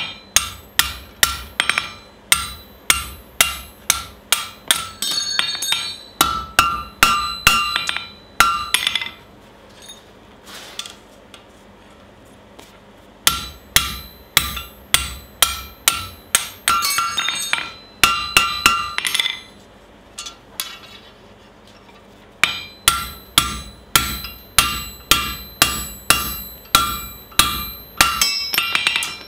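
Hand hammer striking a punch driven through a hot steel bar on an anvil, steady ringing blows about two a second. The blows come in three runs with short pauses between them.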